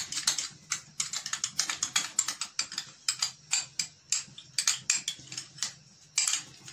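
Metal spoon scraping and clinking against a small glass bowl as ketchup is scooped out into a larger glass bowl: an irregular run of quick, sharp clicks, several a second.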